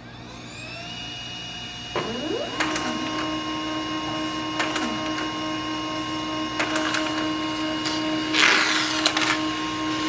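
Pantum laser printer printing its Wi-Fi setup page. It starts with a rising whine as the printer spins up. About two seconds in there is a click, then a steady mechanical hum with repeated clicks while it feeds and prints the sheet, and a louder rush of noise near the end.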